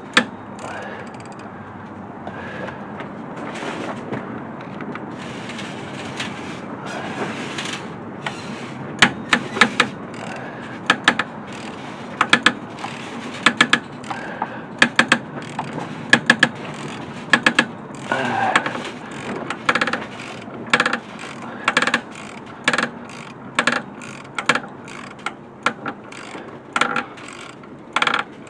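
Hand socket ratchet clicking in short bursts of two or three clicks, about once a second, as a stubborn bolt is worked loose. Before that, about the first eight seconds hold only low handling noise.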